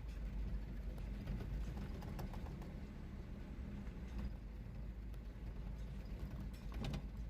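Footsteps and scattered knocks over a steady low rumble.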